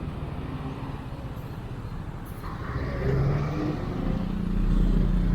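Motor vehicle engine running with road noise, picked up by an action camera's microphone under a furry wind muff. It grows louder from about three seconds in.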